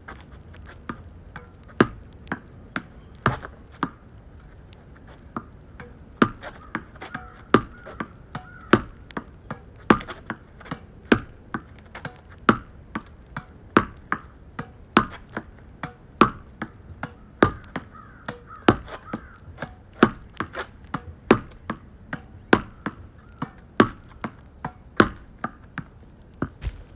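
Tennis ball hit over and over with a racket on forehand strokes and bouncing on asphalt: sharp pops, mostly a loud one with a softer one close by, repeating about once every second or so.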